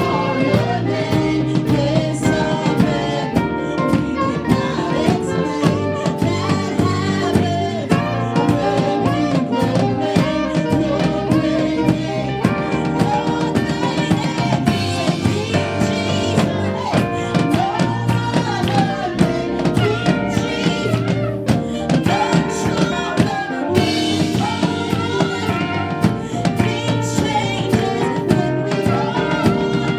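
Live gospel worship music: a band with drum kit playing a steady beat, with singing over it.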